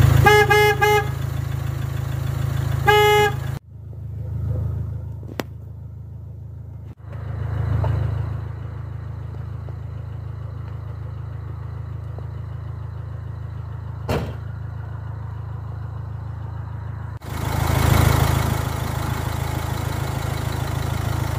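Truck horn honking three short times, two close together at the start and one about three seconds in, over the low, steady drone of the truck's idling engine.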